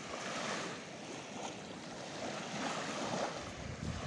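Sea surf washing on the beach, a steady rushing. Near the end, wind rumbles on the microphone.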